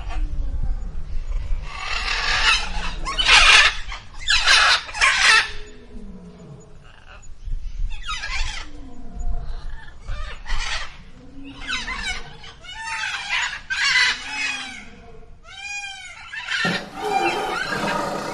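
Domestic fowl calling: a run of loud chicken and rooster calls, crowing and clucking, with a quick series of short rising-and-falling calls late on. Near the end a different, denser animal sound cuts in.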